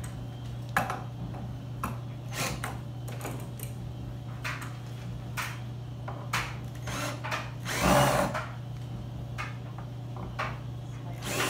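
Cordless drill backing out the screws of a cabinet door's hardware in short runs, with clicks and knocks of screws and metal hardware. One longer, louder run comes about eight seconds in.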